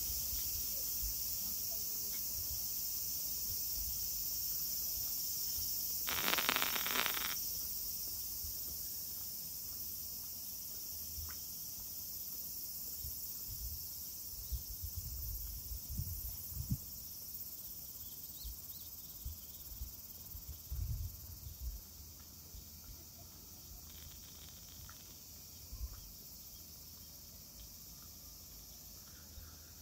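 Cicadas chirping in a steady, high-pitched chorus that slowly gets quieter. About six seconds in, a short noisy rush lasts about a second, and scattered low thumps come and go later on.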